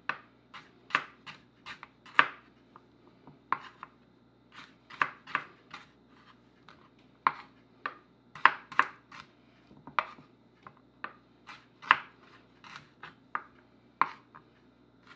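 Chef's knife julienning carrots on a wooden cutting board: an uneven run of sharp knife taps against the board, about two a second with short pauses.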